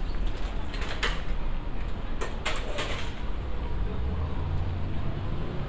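Busy city ambience heard on foot: a steady low rumble of traffic and surroundings, with a few short sharp hissing clatters about a second in and again between two and three seconds in, and a low hum growing near the end.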